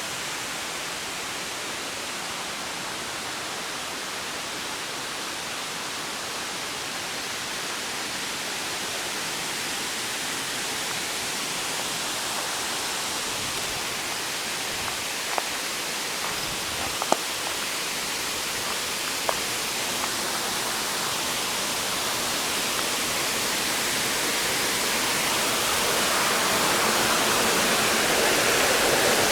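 Waterfall rushing: a steady hiss of falling water that grows gradually louder. A few sharp ticks stand out around the middle.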